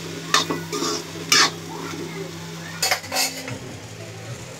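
A metal spatula scraping and clinking against a metal kadai while stirring sliced bitter gourd and onions frying in a light sizzle. There are about four sharp scrapes, unevenly spaced, and a faint steady hum stops a little before the end.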